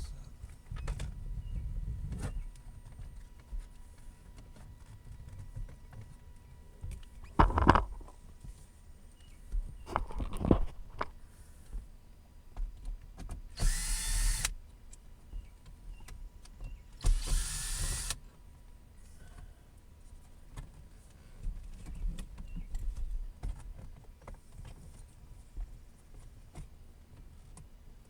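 A cordless power screwdriver runs in two short bursts of about a second each, a few seconds apart, driving screws out of the interior console trim. A couple of sharp knocks come a few seconds before.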